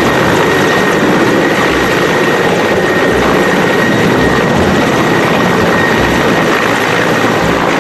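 A loud, steady machine rush with a thin high whine over it and some low thumps, switched on and cut off abruptly.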